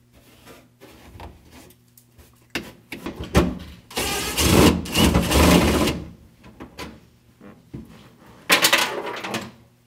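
Cordless DeWalt impact driver hammering under a truck dash: a few short bursts, then a sustained run of about two seconds, and one more short burst near the end. Quieter rustling and clicks come before it.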